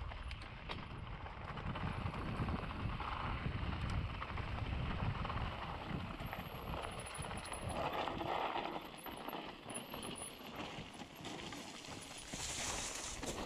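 Mountain bike riding down a rough trail: tyres on dirt and rock, with the bike rattling and clicking over bumps and wind rumbling on the microphone.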